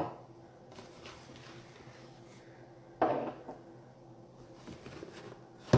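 Rummaging through a box of packed items: faint rustling and handling, with one sharper knock about three seconds in.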